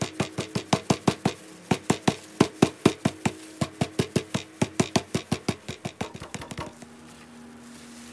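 Stone pestle pounding a block of boiled pork on a wooden cutting board: a fast run of knocks, about four or five a second, that stops near the end. The pounding loosens the cooked meat so it can be torn into shreds.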